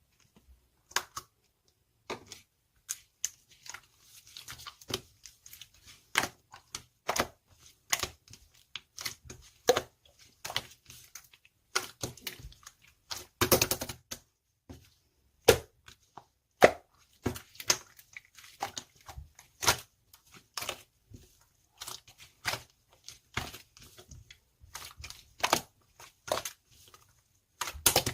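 Chocolate slime being squeezed and pressed by hand, giving a run of short sticky pops and clicks, about one or two a second.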